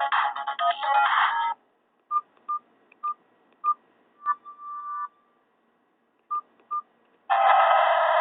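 Nokia 216 mobile phone playing a Nokia 5230 ringtone through its small speaker. The ringtone cuts off about a second and a half in, and single short keypad beeps follow, then a brief longer tone and two more beeps. The next ringtone starts near the end.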